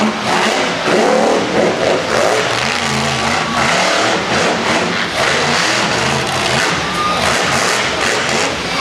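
Monster truck engine revving hard and continuously, its pitch climbing and dropping again and again as the throttle is worked.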